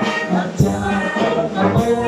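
Mixed choir singing a march over a brass band of saxophones, trombones, trumpets and sousaphone. Drum strikes mark the beat twice.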